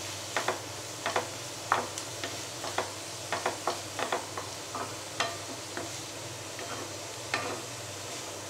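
Wooden spatula stirring and tossing diced beans, carrot and capsicum in a non-stick kadai, with irregular scrapes and taps a few times a second over a steady sizzle as the vegetables sauté in oil.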